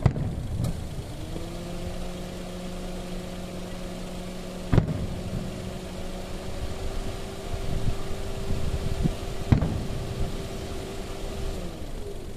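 Aerial fireworks shells bursting: three sharp bangs about five seconds apart, the first right at the start. Under them runs a steady low hum that stops shortly before the end.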